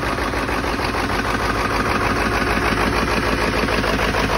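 1997 Ford F-550's 7.3 Power Stroke turbo-diesel V8 idling steadily after a cold start, with rapid, even firing pulses. It is running smoothly, sounding like brand new after three weeks of sitting.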